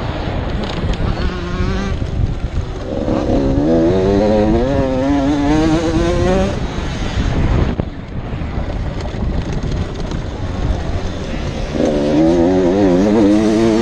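An 85cc two-stroke motocross bike's engine at racing speed. Its pitch climbs under throttle, drops sharply about eight seconds in, then climbs again near the end. Wind rumbles on the bike-mounted microphone.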